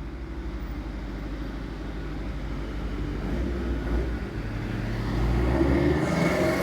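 A car being driven: steady engine and road noise, which grows a little louder about five seconds in.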